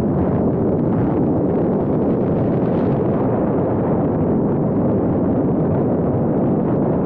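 Steady, loud wind rush buffeting an action camera's microphone as a road bike descends at speed.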